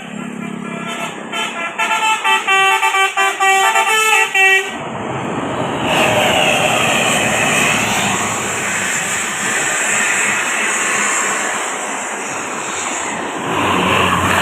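Indonesian bus 'telolet basuri' musical air horn playing a quick tune of short, stepped notes for about four and a half seconds, then stopping. A steady rush of vehicle noise follows.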